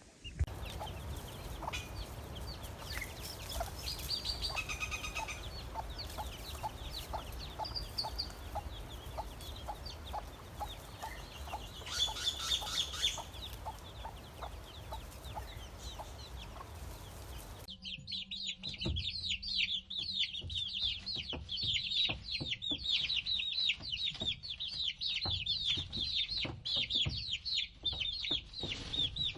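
Baby chicks peeping, with clucking and a low background rumble in the first part. A little past halfway it changes abruptly to a dense chorus of many chicks peeping, high and shrill with quick falling notes.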